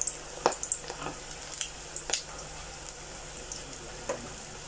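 Bhajias (chilli bite batter fritters) deep-frying in hot oil in a stainless steel pot: a steady sizzle with scattered sharp pops and crackles, more of them in the first couple of seconds.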